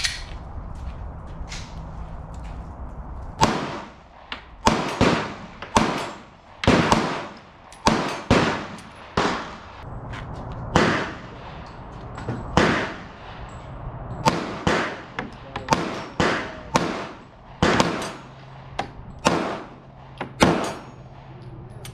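Semi-automatic pistol shots fired at an uneven pace, about one to two a second, some louder and some fainter, each a sharp crack with a short echo.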